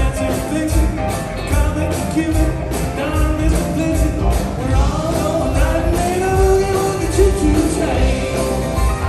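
Live band playing an upbeat boogie-woogie Christmas song with a steady beat, a voice singing over drums, electric guitars and piano.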